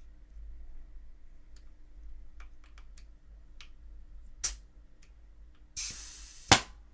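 Nova N4 Odin paintball marker being test-fired on a little air: light clicks of handling, a sharp shot crack about halfway, then a short hiss of air ending in a louder crack near the end.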